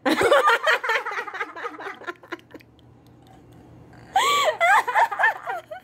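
A woman laughing and giggling in two bouts, a long one at the start and another about four seconds in.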